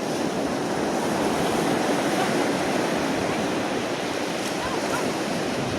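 Steady rush of surf breaking and washing up on a sandy beach.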